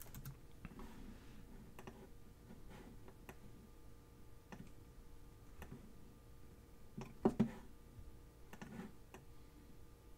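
Scattered clicks of a computer mouse and keyboard, with a louder close pair of clicks about seven seconds in, over a faint steady hum.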